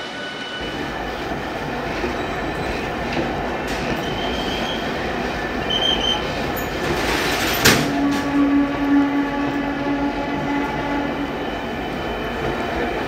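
Passenger train rolling slowly past the platform, its wheels running and squealing on the rails. About seven and a half seconds in, a short hiss ends in a sharp crack, the loudest moment, followed by a steady low hum for a few seconds.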